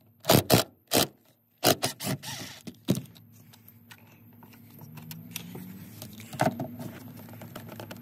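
Stainless steel screws clinking and scraping against a seat pedestal base as they are worked loose and handled, several sharp clicks in the first three seconds. Then a Craftsman cordless driver whirs quietly as it backs out a screw, its pitch wavering.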